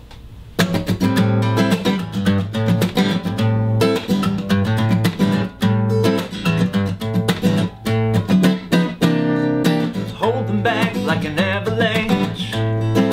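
Steel-string acoustic guitar strummed in a steady rhythm, starting about half a second in. A man's voice comes in singing near the end.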